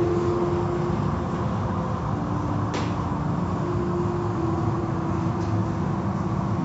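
Automatic car wash machinery and water spray heard from inside the car: a steady wash of noise with a motor hum that steps up and down in pitch, and a single sharp click about three seconds in.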